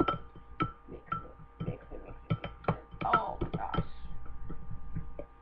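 A utensil clinking and tapping against a glass cup while thick petroleum-jelly lip gloss is stirred, in irregular sharp clicks about two a second. A steady hum of a few tones runs underneath.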